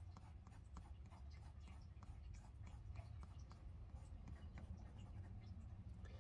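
Faint scratching of a Derwent Drawing Pencil shading on sketchbook paper in short, quick strokes, over a low steady hum.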